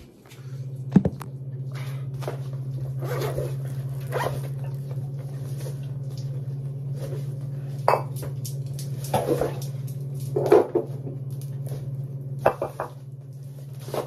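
Scattered rustles and short knocks of an insulated cooler bag being handled and opened, with plastic water bottles inside, over a steady low hum.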